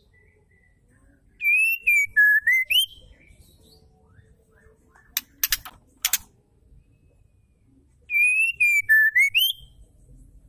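Female white-rumped shama (murai batu) giving a clear whistled phrase twice, about six seconds apart: each time the pitch dips, then rises at the end. Halfway between the phrases comes a quick run of three or four sharp clicks.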